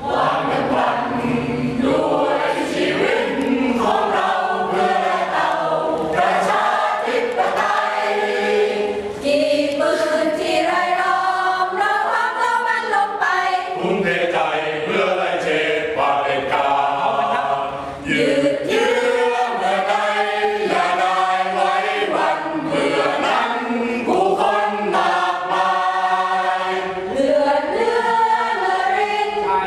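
Mixed choir of men and women singing a song together without instruments, the sung lines held long, with brief dips between phrases about 9 and 18 seconds in.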